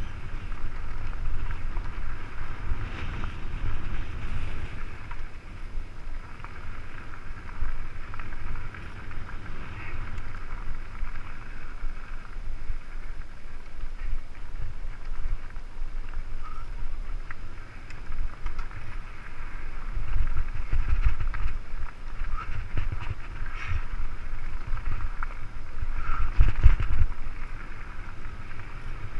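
Wind buffeting a bike-mounted camera's microphone as a mountain bike descends a rough dirt singletrack, with the tyres and bike rattling over stones and ruts. The rumble swells about twenty seconds in and again near the end.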